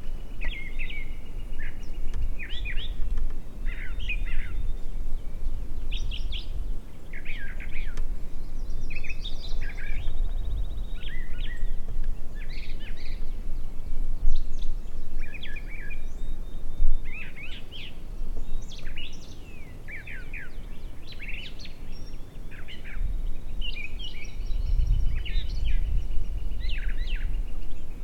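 Several songbirds singing and chirping in short overlapping phrases and trills, over a steady low rumble. Two sharp clicks sound about halfway through.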